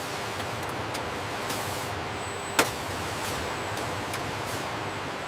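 Steady machine noise of a manufacturing floor, with a single sharp click about two and a half seconds in and a few lighter ticks.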